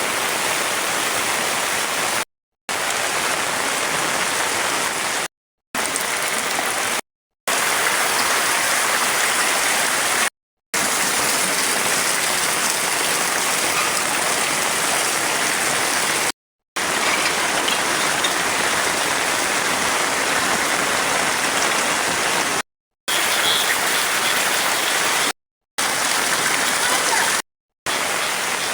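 Heavy rain falling, a steady dense hiss. It drops out abruptly to silence for a moment several times.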